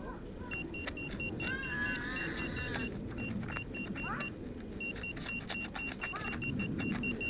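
Metal detector beeping in runs of short, evenly spaced high pulses of one pitch, with pauses between the runs, over scattered scrapes and clicks. A brief warbling whistle comes about two seconds in.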